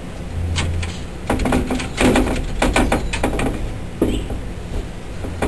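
Locked door rattled and knocked as its handle is tried and the door is pulled against its lock: a run of clattering knocks, then a single sharp click about four seconds in.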